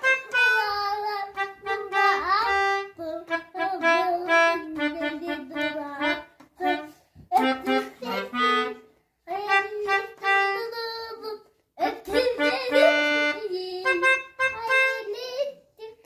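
A child playing a melodica, the mouth-blown keyboard wind instrument: a simple tune of held notes with a few short breaks.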